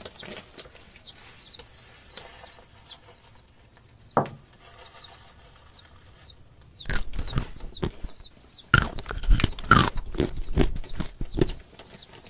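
Baby chicks cheeping steadily, quick high falling peeps several times a second. A single tap about four seconds in, then from about seven seconds in a run of loud, crisp crunches.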